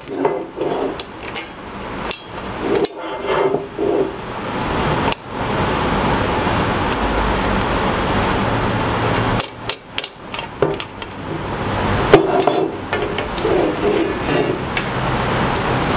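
Clinks, knocks and clatter of small screws and hardware and hard plastic dust-box parts being handled during assembly. A steadier noise runs for a few seconds in the middle.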